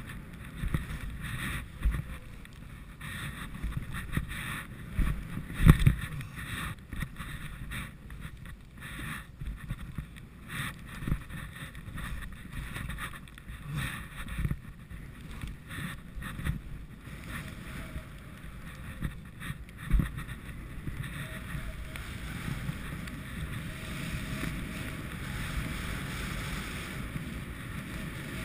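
Skis rushing over snow and wind buffeting a body-worn camera's microphone, with irregular low knocks and thumps, the loudest about six seconds in and again about twenty seconds in; from about twenty seconds the rush turns steadier.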